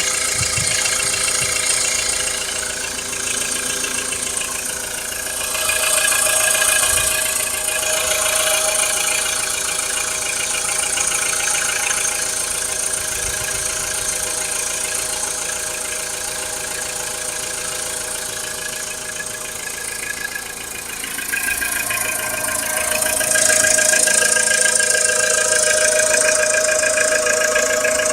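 VW Polo Sedan's 1.6-litre four-cylinder petrol engine idling cold with a steady knock.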